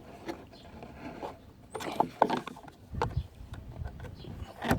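Scattered clicks, taps and knocks of hands and a flathead screwdriver working at a car steering wheel's trim, with a cluster about halfway through and a sharp click near the end.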